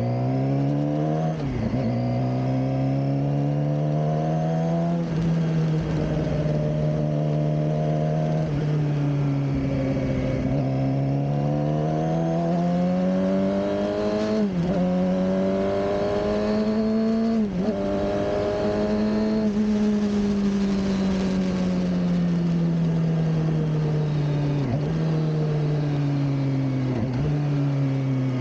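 Suzuki GSX-R600 K7 inline-four engine under way, its pitch climbing and then dropping sharply several times as the gears are shifted, and falling gradually over the last several seconds as the bike eases off.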